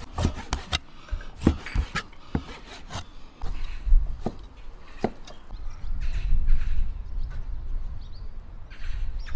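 Cleaver chopping raw pork belly into chunks on a cutting board: a run of sharp, irregularly spaced knocks over the first five seconds or so, then a low rumble in the second half.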